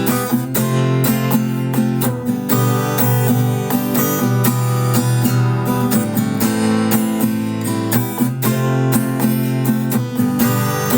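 Acoustic guitar strumming chords in a steady rhythm, at a slightly slow tempo of about 125 beats a minute.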